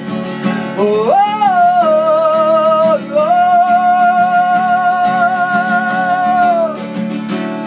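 A solo singer with acoustic guitar: the voice rises into a held note about a second in, breaks briefly around three seconds, then holds a long note that falls away near the end, over steady guitar playing.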